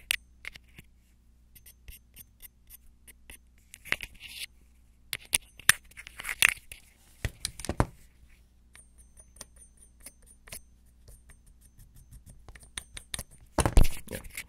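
A metal baitcasting reel being handled: repeated small metallic clicks, clinks and scrapes of its parts, some with a brief high ring. A louder handling bump comes near the end.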